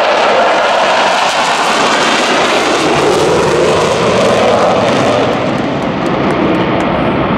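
Jet engines of four F/A-18 Hornets flying over in close formation, a loud continuous rush of jet noise. Its whooshing tone slides down, rises and falls again as the formation passes and pulls away, and the sound grows duller near the end.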